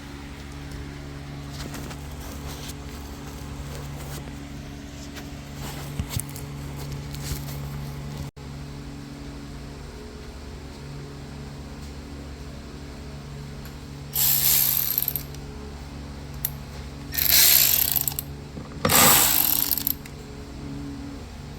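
Ratchet wrench clicking in three runs of about a second each, loosening the small hose clamps on the air filter housings, over a steady low hum.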